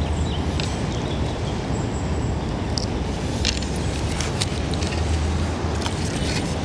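Steady low rumble of outdoor background noise, with a few faint, scattered clicks.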